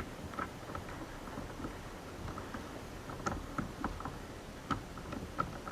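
Light, irregular clicks and taps of a socket tool as the steering wheel's center bolt is hand-tightened with a 10 mm hex-head socket, a few sharper clicks past the middle.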